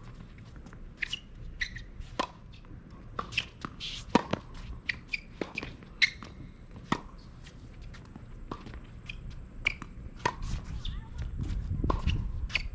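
Tennis rally on an outdoor hard court: sharp knocks of racket strings hitting the ball and the ball bouncing, mixed with short squeaks of tennis shoes on the court surface. A low rumble builds near the end.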